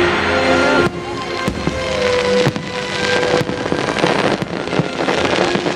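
Fireworks display bursting: repeated sharp bangs with crackling between them, and show music playing underneath.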